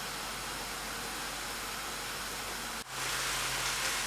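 Mushrooms sizzling and simmering in a pan as the water they released boils off, a steady hiss. It breaks off for an instant near the end of the third second and comes back a little louder.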